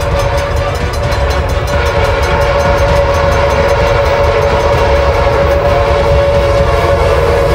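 Train horn sounding one long, steady note over the rumble of a moving train.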